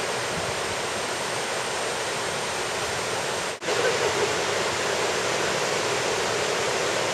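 Mountain river rushing over rocks and small rapids: a steady rush of water, broken by a brief dropout about three and a half seconds in.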